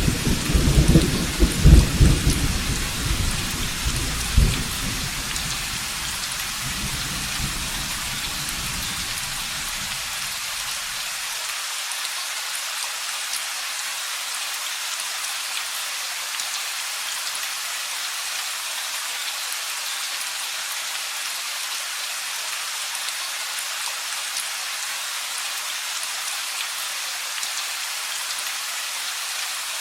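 Steady rain hissing throughout, with a roll of thunder at the start, loudest in the first few seconds, that rumbles away and fades out by about ten seconds in.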